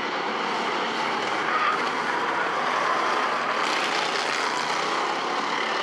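A pack of Bomber-class stock cars racing together around a short paved oval, their engines running hard at speed in a steady, unbroken roar of overlapping engine noise.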